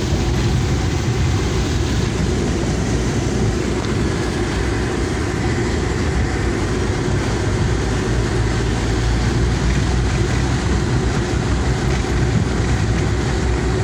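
A car driving through heavy rain, heard from inside the cabin: a steady, loud rush of rain on the roof and windshield over the rumble of tyres and engine.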